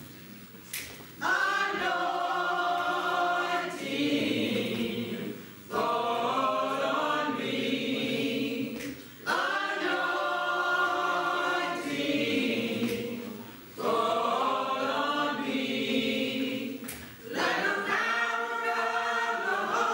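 Church choir singing a hymn in five phrases about four seconds apart, each starting strongly and fading before the next.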